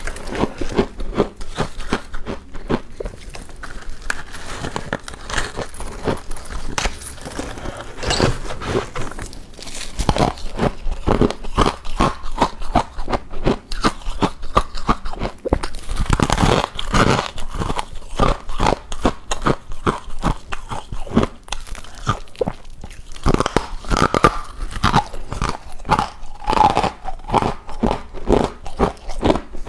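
A person biting and chewing hard ice from a deep freezer: a dense, irregular run of crunches and cracks.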